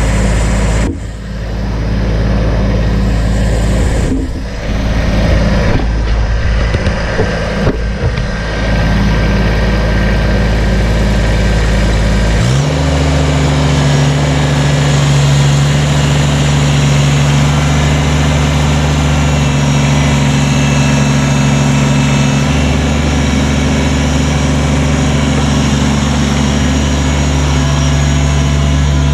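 Engine running unevenly at low speed, then about twelve seconds in it speeds up abruptly and holds a higher, steady speed.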